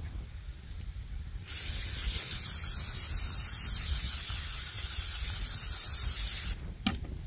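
Aerosol cooking spray (Pam) hissing in one continuous spray of about five seconds as it coats a cast-iron pie iron, over a low rumble of wind.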